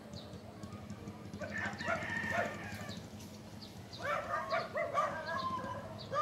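Rooster crowing, once about a second and a half in and again about four seconds in, over a low steady hum.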